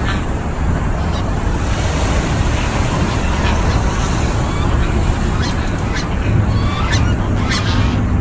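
Geese honking in short, scattered calls, more of them in the second half, over a steady rumble of wind and water. A low steady hum joins about six seconds in.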